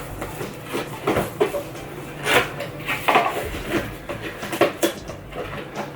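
A microphone's box and packaging being opened and handled: irregular knocks, taps and short rustles, about a dozen in all.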